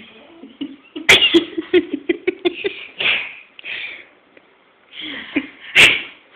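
A baby's vocal noises while being spoon-fed: a sudden sputtering burst about a second in, then a quick run of short babbling sounds, a couple of breathy sounds, and another sputter near the end.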